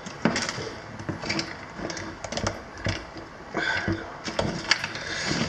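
Irregular clicks, taps and knocks of hand work on a motorcycle wiring harness, with plastic connectors and parts being handled.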